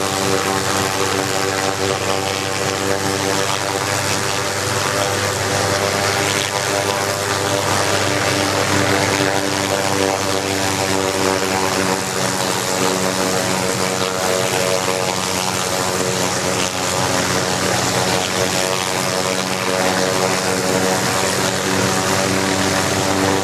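Hughes 500 helicopter's turbine engine running steadily on the ground, with the main rotor turning, after a cold start. It is an even whine and hum that holds constant pitch.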